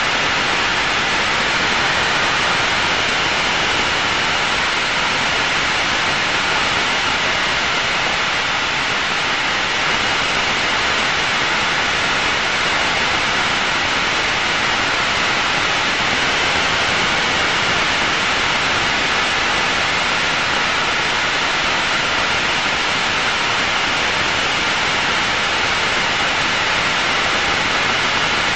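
Steady in-flight cockpit noise of an Aero L-39 Albatros jet trainer: an even, unbroken hiss of jet engine and rushing air that holds the same level throughout.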